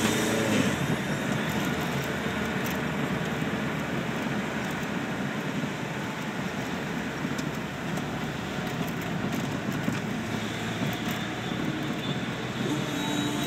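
Steady road noise inside a moving car: tyres hissing on wet pavement over the running engine.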